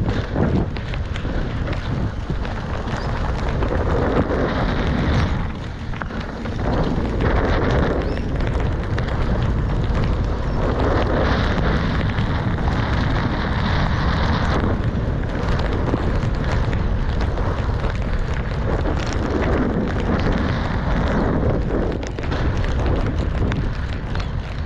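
Wind buffeting the microphone with a mountain bike rolling fast over a wet dirt trail: a loud, continuous rushing noise that eases briefly twice.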